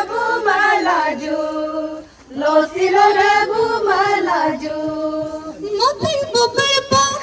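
Women's voices singing a slow traditional chant in long held notes, with a brief pause about two seconds in. Near the end, music with sharp clicks cuts in.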